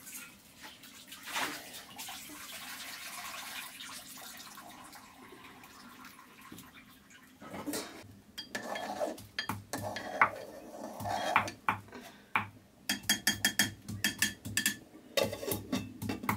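Stainless steel plates and pot lids clattering and clinking as they are handled on a steaming pot, with a quick run of ringing metal taps near the end. Before the clatter starts, about seven seconds in, there is a steady hiss.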